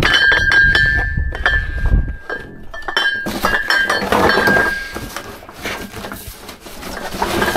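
Metal gas cans clinking and knocking together as they are handled, with a high metallic ringing note and a scraping rustle in the middle.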